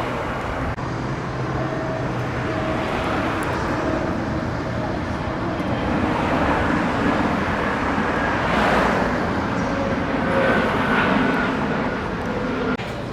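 Road traffic: the steady noise of vehicles driving by, with louder passes swelling up about halfway through and again later.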